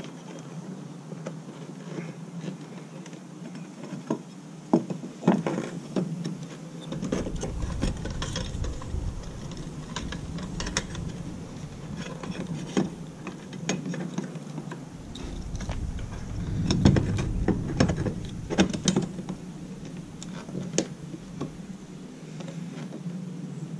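Hand work on a fuel pump module seated in a plastic fuel tank: irregular clicks, taps and knocks of metal and plastic parts as the lock ring is fitted over the pump, with a low rumble coming and going.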